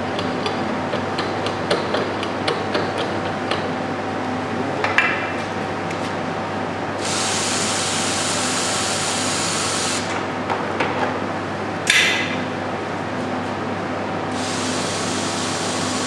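Cordless drill driving out the fixings on an industrial vacuum cleaner's motor head, in several runs: a short burst about five seconds in, a run of about three seconds, another short burst, and a last run near the end. A steady low hum sits underneath, with light rapid clicking in the first few seconds.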